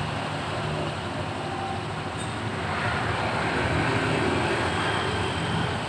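Honda Scoopy scooter engine running with a steady growling drone ('ngorok'), swelling slightly and picking up a faint whistle-like tone in the middle. The growl comes from intake air swirling around a dirt guard in the air intake, which the mechanic likens to a snail horn.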